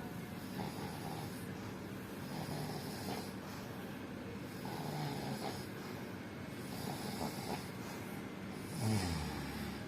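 A person snoring in their sleep, a rough snore about every two seconds, with a louder snort falling in pitch near the end.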